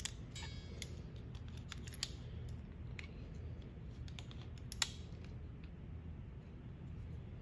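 Pliers clicking and scraping faintly on steel while trying to grip a small key in a shaft keyway on a milling machine's quill feed. A handful of separate light metal ticks, with a short scrape early on and the sharpest tick about five seconds in.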